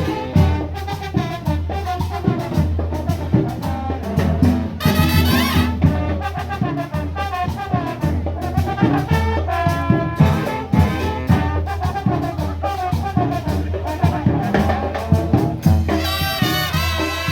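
Parade band playing lively music, with trumpets and trombones over drums keeping a steady beat.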